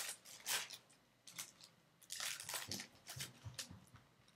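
Foil trading-card packet being torn open and crinkled by hand: a run of irregular sharp crackles, with a few soft low knocks in the second half as the cards are handled.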